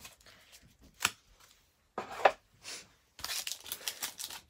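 Baseball card pack wrapper being handled and torn open: a couple of sharp snaps, then crinkling and tearing of the wrapper from about three seconds in.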